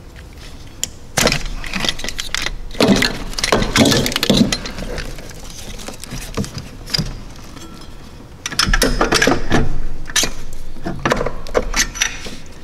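Hands handling parts in an engine bay: a run of clicks, knocks and rattles of plastic and metal in two busy stretches, the first from about a second in, the second over the last four seconds.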